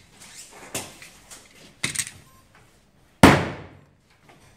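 Rubber mallet knocking on the frame of a pleated mosquito net: a few light knocks, then one loud, sharp strike about three seconds in.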